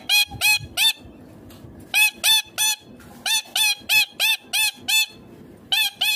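Indian ringneck parakeet giving shrill, harsh squawks, each rising and falling in pitch, about three a second in short runs of two to six with brief pauses between.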